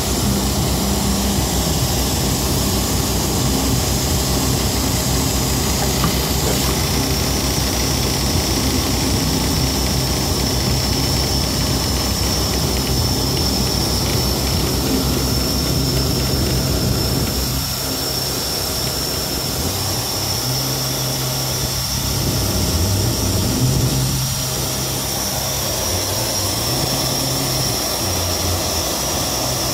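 Volvo 780 semi truck's diesel engine idling steadily, left running to keep air pressure in the suspension, with a thin steady high whine over it.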